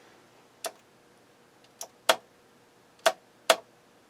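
Sharp mechanical clicks, five of them at uneven intervals over about three seconds: the power switch on a JVC JA-S71 amplifier being flicked on and off while the amplifier stays dead, a fault later traced to the switch itself.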